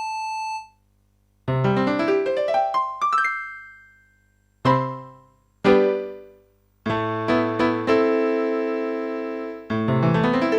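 Yamaha J14 electronic keyboard playing a piano-like voice: a held note cuts off, then a quick rising run of notes, two struck chords that fade out, and a string of repeated chords over a held tone.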